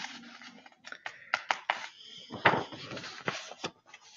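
A picture book being handled and its pages turned: paper rustling, with a run of sharp taps and clicks, loudest about two and a half seconds in.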